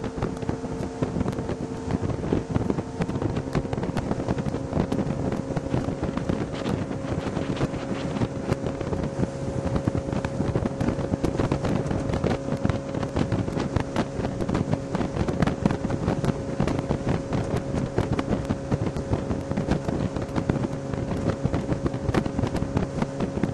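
Small motorboat's engine running steadily under way, its pitch stepping up slightly about three seconds in, with wind buffeting the microphone.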